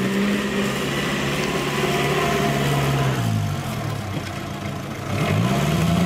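Vintage car's engine running with the revs held, then dropping away about three seconds in and rising again about two seconds later.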